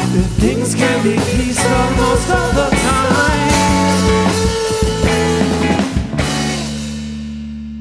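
Rock band playing live with drums and guitars, then stopping on a final held chord about six seconds in that rings out and slowly fades.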